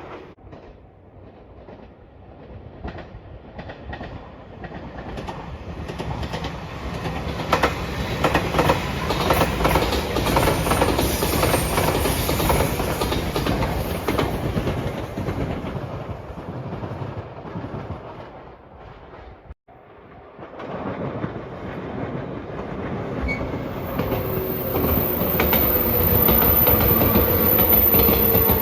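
Electric train passing at speed over a level crossing, its wheels clattering over the rail joints in a rapid rhythm. After a sudden break, another train approaches and passes with a whine that slowly falls in pitch.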